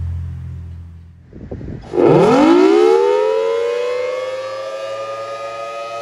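Federal Signal Thunderbolt 1000AT outdoor warning siren starting up. A low rumble fades out over the first second, and then, about two seconds in, the siren comes on loudly. Its several tones sweep steeply up in pitch and level off into the steady alert tone.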